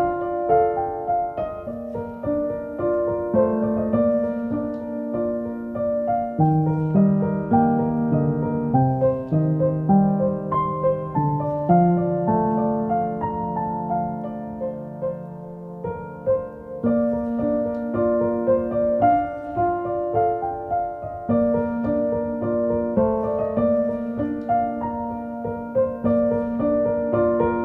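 Background piano music: a slow melody of held notes over a soft accompaniment.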